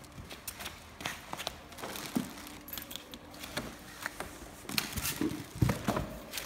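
Hands fitting a plastic wheel onto the axle of a toy ride-on car: scattered light clicks and knocks with rustling of plastic sheeting, the louder knocks near the end.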